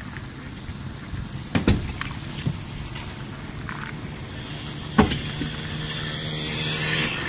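Low drone of a motorised outrigger boat's engine on the harbour, growing louder and steadier in the last couple of seconds, with two sharp knocks, one about a second and a half in and one about five seconds in.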